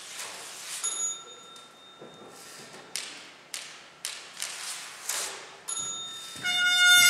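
Manual typewriter keys struck one at a time in a loose rhythm, with the typewriter's bell ringing about a second in and again near the end. A trumpet then comes in loudly with a held note just before the end.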